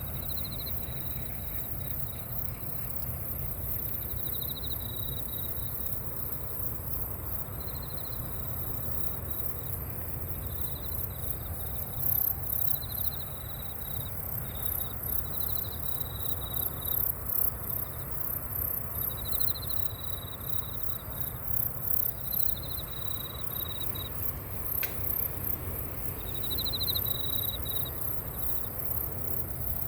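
Insects chirping: a fast, high-pitched pulsing trill throughout, with a lower chirping phrase about a second long repeating every two or three seconds, over a steady low rumble.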